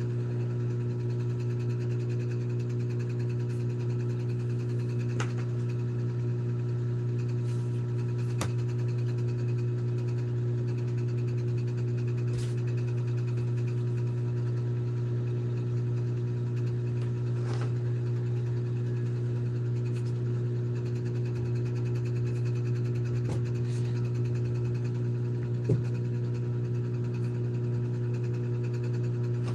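Steady low mechanical hum with a few faint clicks and one brief knock near the end.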